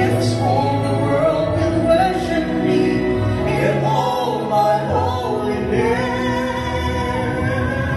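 A man and a woman singing a slow gospel duet into microphones over an instrumental backing, with long held notes.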